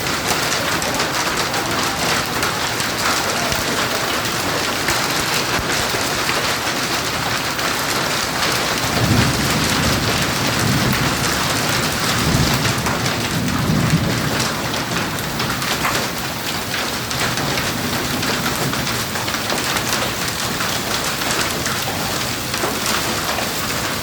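Hail and heavy rain pelting hard surfaces: a dense, steady hiss full of sharp clicks from stones striking. About nine seconds in, a low rumble of thunder rises under it and fades out some five seconds later.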